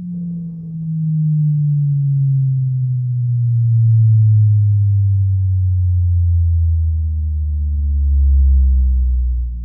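Bass test tone from a Bang & Olufsen Beosound A5 speaker: a single pure low tone slides slowly and steadily down in pitch into deep bass, with faint overtones above it.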